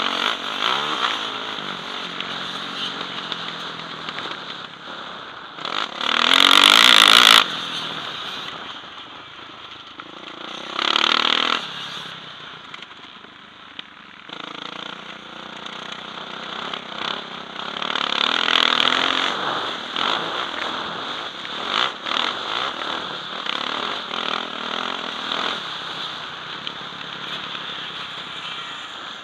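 Yamaha motocross bike's engine revving and falling back as it is ridden hard round a dirt track, heard from a helmet-mounted camera with wind rushing on the microphone. Two loud bursts of noise break in, a long one about six seconds in and a shorter one about eleven seconds in.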